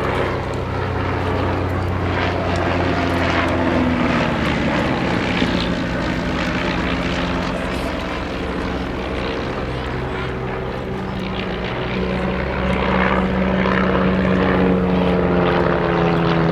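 Two de Havilland Chipmunks flying, their four-cylinder Gipsy Major piston engines and propellers droning steadily. The engine note slides down a few seconds in and shifts again near the end as the aircraft move past.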